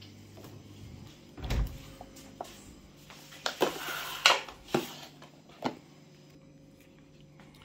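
A refrigerator door shuts with a low thud about one and a half seconds in. Then comes a run of sharp clicks and crackles from a thin clear plastic food container being handled and set down on a stone counter.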